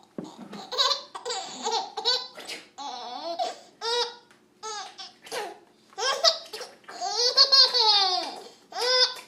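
Baby laughing in repeated high-pitched bursts of giggles. A longer, louder laugh comes about six seconds in.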